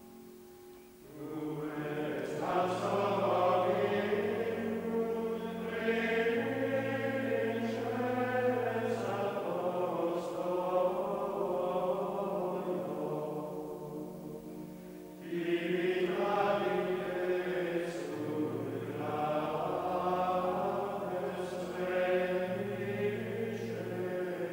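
Choral chant used as background music: voices singing slow, held notes over a low sustained part, in two phrases, the second starting about fifteen seconds in.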